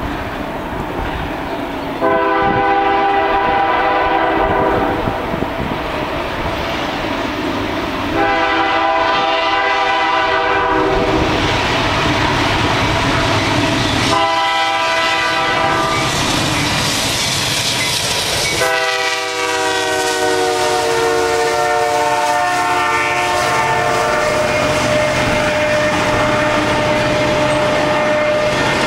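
CN diesel freight locomotive's multi-note air horn sounding two long blasts, a shorter one and a final long blast, the crossing-signal pattern. The last blast drops in pitch as the locomotive passes. Between and after the blasts come the rumble and wheel clatter of a double-stack container train rolling by.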